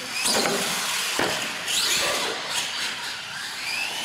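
Electric motors of R/C monster trucks whining, rising in pitch several times as the trucks accelerate, with a couple of sharp knocks from the trucks hitting the ramps and floor.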